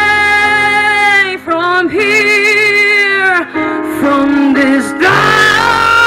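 A woman singing into a microphone, holding long notes with vibrato in short phrases, over instrumental accompaniment.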